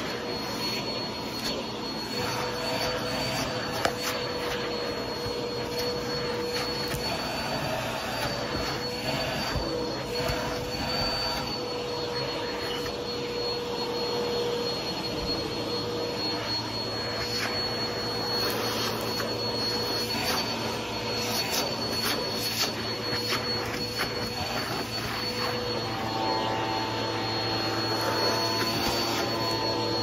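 Vacuum cleaner running steadily with a wavering whine, its nozzle scratching and rubbing over a microfibre sofa cushion. Extra whining notes join about four seconds before the end.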